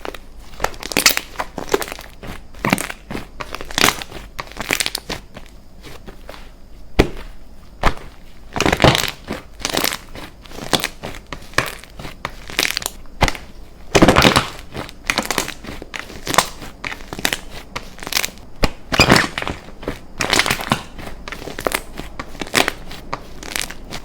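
Slime being squished, pressed and mixed by hand: a steady run of irregular crackly presses and pokes, a few every second.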